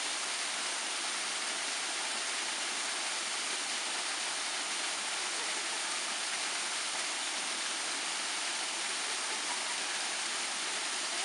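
Small waterfall running steadily down a rock face, an even, unbroken rush of falling water.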